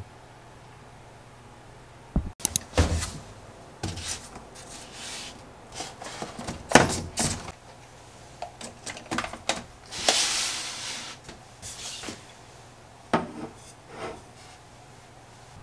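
Household items being put away on a laundry rack: scattered light knocks, clatters and rubs as things are set down and moved, with a sharper knock about seven seconds in and a longer hiss about ten seconds in.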